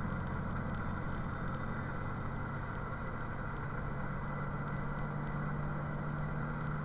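Steady engine drone and road noise inside a truck cab at highway speed, with a low hum that grows stronger in the second half.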